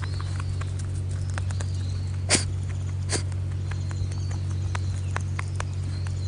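A rabbit sneezing twice, sharply, a little under a second apart. The sneezing is a sign that the rabbit is unwell. Scattered light clicks and a steady low hum run underneath.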